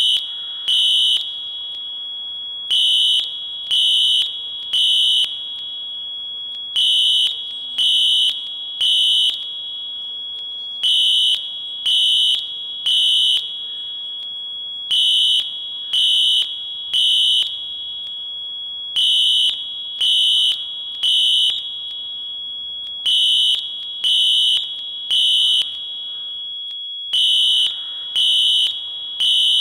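Fire alarm signals under test: a high-pitched tone sounding in the temporal-3 evacuation pattern, three half-second beeps then a pause, repeating every four seconds. A quieter steady tone at the same pitch continues between the beeps and cuts out briefly near the end.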